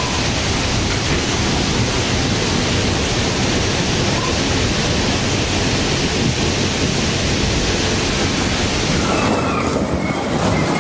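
Storm of strong wind and heavy rain heard on a phone recording: a loud, dense, steady rush of noise. About nine seconds in the sound changes slightly as a second recording of the storm begins.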